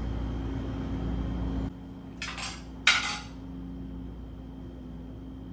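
Cutlery clinking against a dish twice in quick succession, the second clink sharper and louder, after a steady low hum cuts off suddenly.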